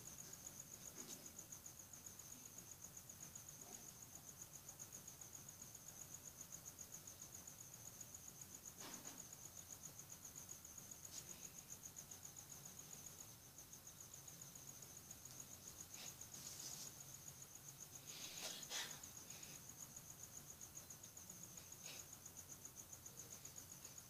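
Faint, steady, high-pitched insect trill that pulses rapidly and does not stop, with a few faint brief sounds about nine seconds in and again near nineteen seconds.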